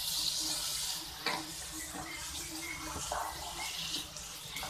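Spatula stirring paneer cubes into thick, bubbling gravy in a non-stick kadai, with a steady sizzling hiss and a few light knocks of the spatula against the pan.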